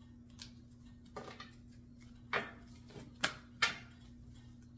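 About half a dozen short, sharp clicks and taps, the loudest three between about two and a half and four seconds in, over a steady low hum.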